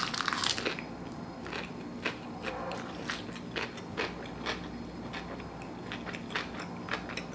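Close-up eating: a bite into a mouthful of sushi bake on a cucumber slice crunches loudly at the start, followed by chewing with small scattered clicks and smacks.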